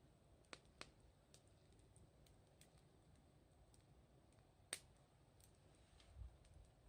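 Wood bonfire crackling: faint, scattered pops at an uneven pace, the loudest a little under five seconds in.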